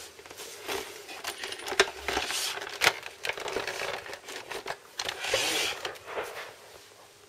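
Things being handled: irregular sharp clicks and knocks mixed with bursts of rustling, the loudest clicks about two and three seconds in.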